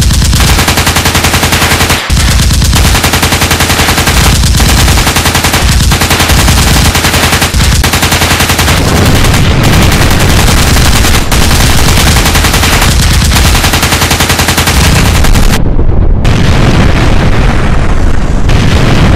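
Rapid automatic gunfire, machine-gun fire going almost without a break, very loud.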